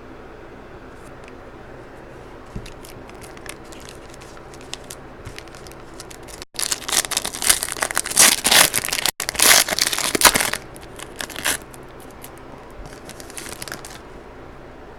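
Foil wrapper of a trading-card pack being torn open and crinkled: loud crackling for about five seconds in the middle, with lighter rustles and clicks of handled cards before and after.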